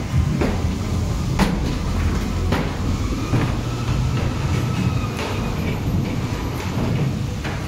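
Dark-ride car running along its track, a steady low rumble with several sharp clunks spaced a second or so apart.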